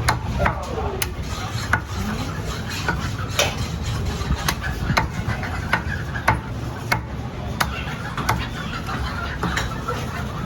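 Cleaver chopping through a country chicken on a wooden block: sharp strikes about every half to three-quarters of a second, with faint voices behind.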